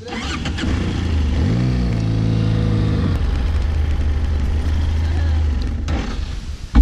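BMW F800GS parallel-twin motorcycle engine running at low speed. The revs rise briefly about one and a half seconds in, then the engine runs steadily, and it drops away just before the end.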